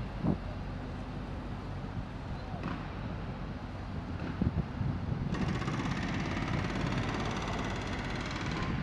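Steady low rumble of distant city traffic. About five seconds in, a louder hiss starts suddenly and cuts off near the end.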